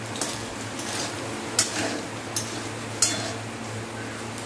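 Whole garlic cloves frying in hot oil in a metal kadai, a steady sizzle, while a metal spatula stirs them, clinking and scraping against the pan several times.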